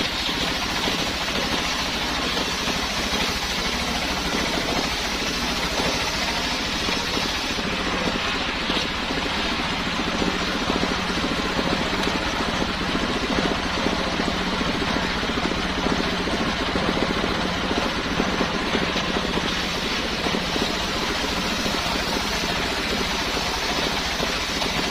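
Homemade engine-driven circular saw running steadily, its motor giving an even, unbroken drone.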